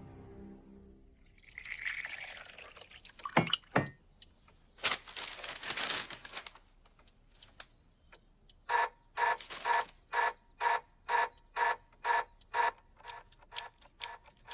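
A mechanical contraption working: a couple of sharp clicks and a rushing hiss, then a regular ratcheting tick with a slight ring, about two a second, quickening toward the end.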